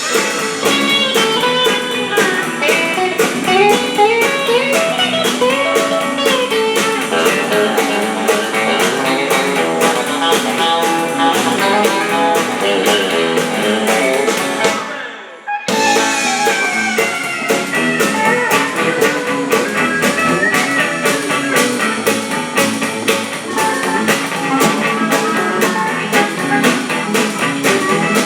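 Live country-boogie band playing an instrumental break in a truck-driving song: guitar lead with gliding notes over a steady drum beat. The sound briefly drops out about halfway through.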